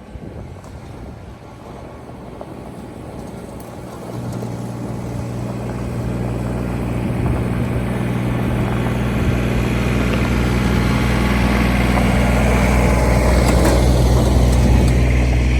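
A vehicle engine running with a steady low hum that grows gradually louder from about four seconds in.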